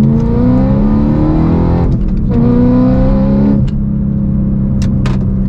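BMW E92 M3's V8 engine pulling hard under acceleration, heard from inside the cabin: the note climbs for about two seconds, breaks for a quick upshift, climbs again, then drops to a steady cruise as the throttle is lifted near four seconds in. Two short clicks follow near the end.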